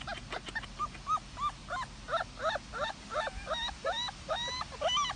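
A puppy yipping and whimpering in a quick run of short, high, rising-and-falling cries, about three to four a second.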